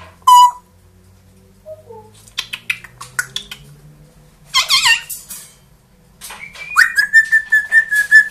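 Pet parrot vocalising: a short call, then clicks and brief squawky sounds, and near the end a quick upward glide into a long whistle held on one note.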